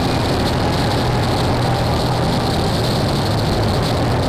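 Power-electronics noise music: a dense, unchanging wall of hiss and distortion over a low droning hum, with no beat or melody.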